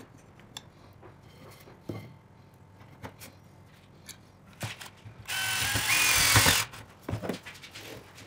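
Clicks and knocks of a square steel tube socket and a wooden stick being handled and fitted onto a drill chuck, then a loud grinding burst with a high whine about five seconds in, lasting over a second, followed by a few more knocks.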